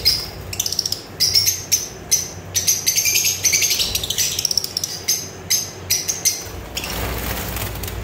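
Lovebirds chattering in an aviary: rapid, high-pitched chirps in quick succession, giving way to a steady hiss in the last second or so.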